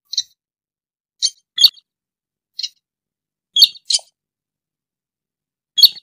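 Slaty-breasted rail (sintar) calling: short, sharp, high-pitched notes, some single and some in quick pairs, about seven of them with short silences between.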